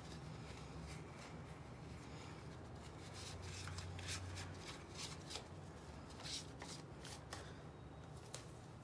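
Faint rustling and rubbing of tissue as it wipes residue from inside a small scooter engine's clutch housing, in short scratchy strokes over a low steady hum.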